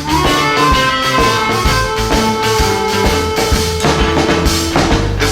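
Electric blues band playing an instrumental break, with a steady drum-kit beat, bass and held lead notes over it.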